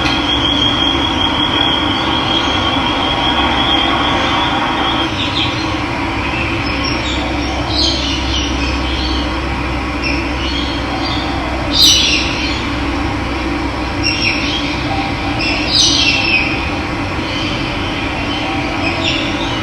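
Steady rush of running water, with a thin high trill during the first few seconds and then scattered short, high bird chirps, the sharpest about twelve and sixteen seconds in.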